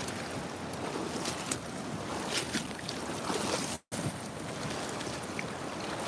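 Steady rushing noise of swollen river floodwater, with wind on the microphone. The sound cuts out for an instant a little before four seconds in.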